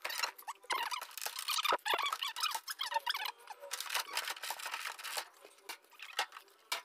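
Clear plastic blister packaging crinkling and squeaking as it is gripped, flexed and pulled apart, with many small clicks. The sound is dense for about five seconds, then thins to a few scattered clicks.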